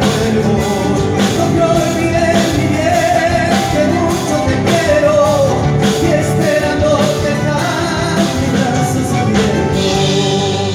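A live folk band playing: a man singing over acoustic guitars and keyboard, with a steady beat.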